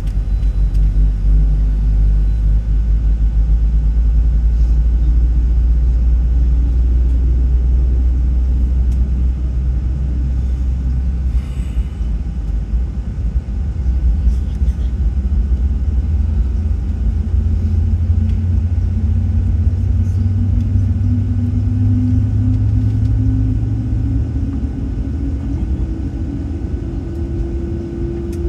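Low rumble and hum inside the cabin of a Southwest Boeing 737-700 being pushed back. Over the last ten seconds or so the hum slowly rises in pitch, as a CFM56-7B engine spools up during engine start.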